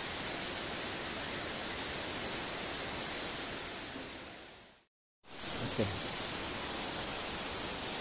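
Steady rushing of falling water from the waterfall and river in the gorge, an even hiss with a bright high edge. It fades out to a brief silence about five seconds in and comes straight back.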